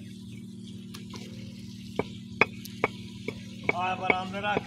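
Bricklaying: a handful of separate sharp knocks and clinks as bricks are set and tapped down on a low brick wall, over a steady low hum. A voice is heard near the end.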